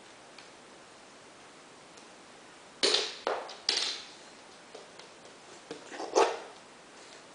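Small plastic toy car thrown down onto a hardwood floor, clattering: three sharp knocks within about a second, then a few more knocks a couple of seconds later, the loudest near the end.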